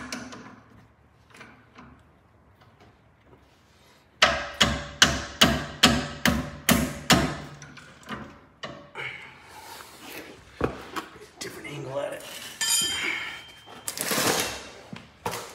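Hand tools working the lower nut of a car's front sway bar end link: after a quiet stretch, a run of about ten sharp metallic knocks with a short ring, about three a second, then scattered softer knocks and handling noise.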